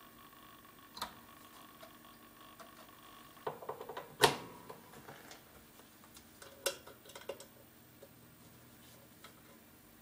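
Handling noise of a guitar amplifier chassis and its parts being worked on with gloved hands: scattered sharp clicks and knocks of metal and plastic. A quick cluster about three and a half to four seconds in ends in the loudest click, and a few more come a little later. A faint steady tone stops about three and a half seconds in.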